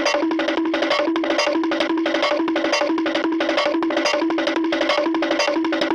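Cartoon running sound effect: a quick, bouncy loop of two alternating plucked notes over fast, even wood-block ticks, cutting off abruptly at the end.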